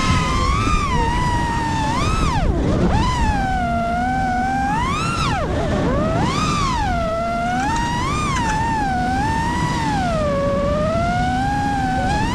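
FPV freestyle quadcopter's motors and propellers whining, the pitch swooping up and down over and over as the throttle changes, over a steady low rushing noise.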